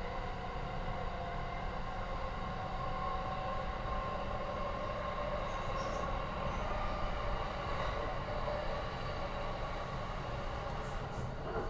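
Running noise heard inside the cabin of a JR East E235-1000 series Green Car travelling between stations: a steady rumble of wheels on rail, with a few faint steady tones laid over it.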